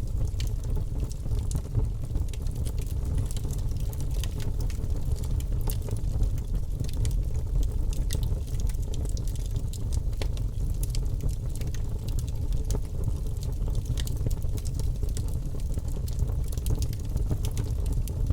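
Birch logs burning in a fireplace: frequent sharp crackles and pops over a steady low rumble of the flames.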